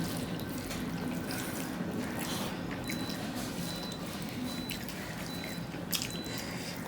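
Wet, squishy eating sounds: rice and fish curry being mixed by hand and chewed, with scattered small clicks over a steady low hum.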